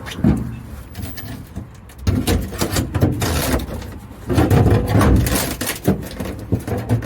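Crowbar prying the old plywood floor lining out of a van: irregular knocks, thuds and scraping of wood, in two longer stretches with single knocks between.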